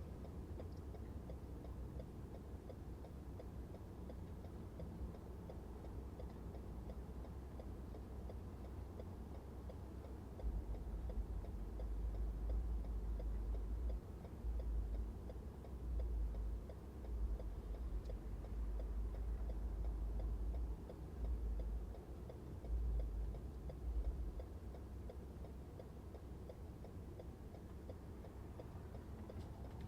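A car's turn-signal indicator ticking steadily inside the cabin, over low road and engine rumble. The rumble swells in uneven stretches through the middle.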